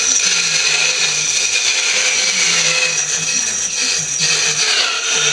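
Small electric motor of a hand-held power tool whining steadily as it spins the band wheels of a homemade horizontal band sawmill, then stopping abruptly near the end.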